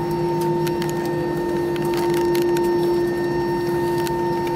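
Airbus A320 jet airliner's cabin noise while taxiing after landing: the engines run at idle with a steady whine over an even rush of air, with a few faint clicks and rattles.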